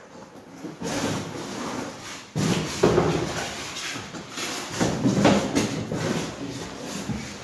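Printer being lifted and slid out of its cardboard box, with the cardboard and packing scraping and rustling in irregular bursts.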